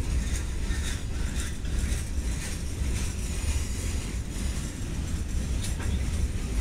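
A train rolling past: a steady low rumble from the cars, with irregular clicks and clanks of the wheels over the rail joints.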